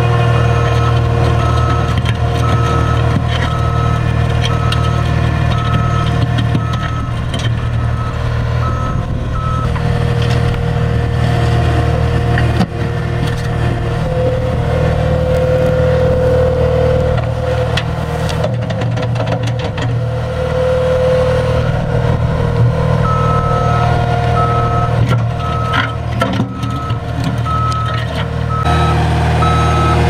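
Caterpillar skid steer's diesel engine running steadily under remote control, with its backup alarm beeping in an even on-off pulse for about the first ten seconds and again near the end.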